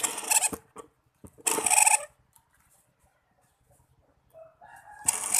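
Homemade mini drill driven by a 775 DC motor on a 12 V battery, given two short bursts of power, then spinning up in rising steps near the end into a loud, steady high-speed whine.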